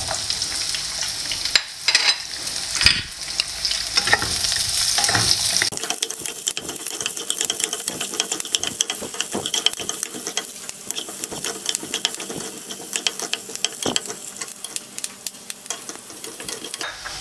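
Chopped onions sizzling and frying in a little hot oil in a nonstick pan, stirred with a wooden spatula that knocks and scrapes against the pan. The sizzle is loudest for the first few seconds after the onions go in, then settles to a steadier crackle.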